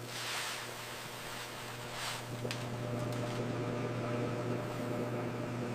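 Potato chip seasoning drum running with a steady hum, under the hiss of chips pouring and tumbling in the drum, with a couple of light clicks about halfway through.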